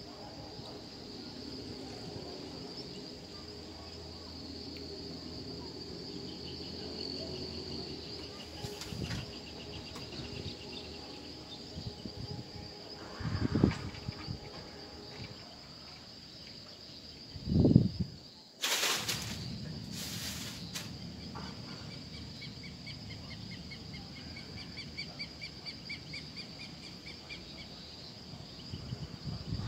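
Insects chirring outdoors: a steady high-pitched whine with trains of fast, even pulsed chirps over it. Two short low thumps about halfway through are the loudest sounds, followed by a brief rustling scrape.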